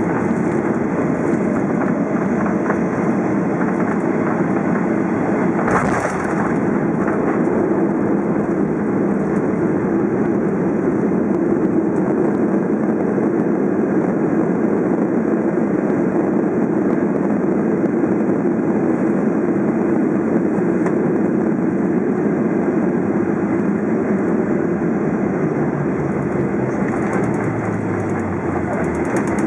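Cabin noise of a Boeing 737-800 landing: steady loud engine and airflow rush, with a sudden thud about six seconds in as the main wheels touch down, then continued rushing as it rolls and brakes on the runway with spoilers up. Near the end a low engine tone falls in pitch as the engines wind down.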